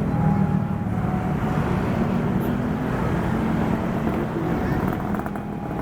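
Diesel locomotive of a passenger train running steadily, a low engine drone with a thin steady whine above it.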